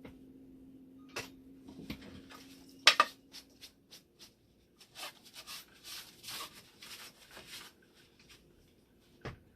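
Hands working on parts inside a machine: scattered clicks and knocks, one sharp knock about three seconds in, and a stretch of rubbing and rustling in the middle, over a faint steady hum.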